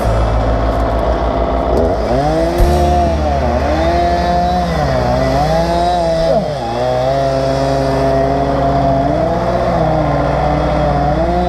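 Engine revving up and down several times over a steady low engine drone.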